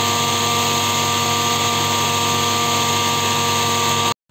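Electric mixer grinder running at full speed, grinding black peppercorns in its small steel jar: a loud, steady motor whine over a rattling hum. It cuts off abruptly near the end.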